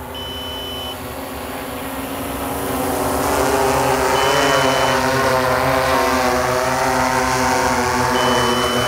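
DJI Matrice 200-series quadcopter's propellers and motors humming as it comes in to land. The hum grows louder over the first three seconds, then runs steadily with a slightly wavering pitch. A short high beep sounds three times, about four seconds apart.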